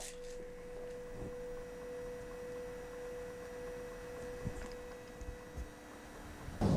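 A Buddhist standing bowl bell (rin) ringing out with one long, pure, steady tone that slowly fades. There are a couple of faint low knocks near the end.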